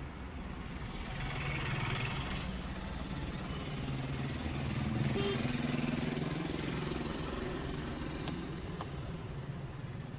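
A motor vehicle's engine running close by, growing louder twice and easing off again, with a couple of faint ticks near the end.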